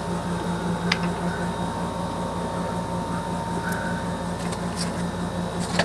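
A steady mechanical hum with a low, slightly pulsing tone, broken by two light clicks, one about a second in and one near the end.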